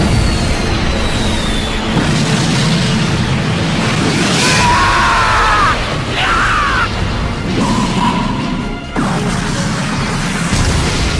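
Anime energy-blast and explosion sound effects, a dense continuous wash of noise, layered over background music.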